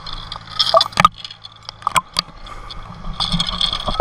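Water sloshing and splashing around a camera held at the surface, with sharp irregular clicks and splashes, over the steady low running of a crane's engine.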